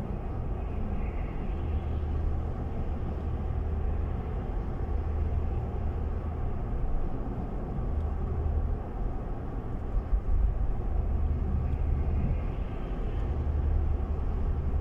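A car driving, heard from inside the cabin: a steady low engine and road rumble, with a brief louder patch about ten seconds in.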